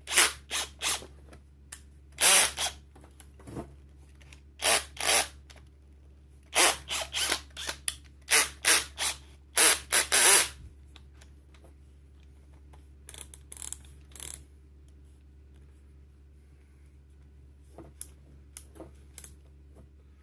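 Bosch GSB18V-490 subcompact brushless hammer drill worked in a series of short mechanical bursts, a dozen or more in quick succession with brief gaps. Fainter, shorter bursts follow later on.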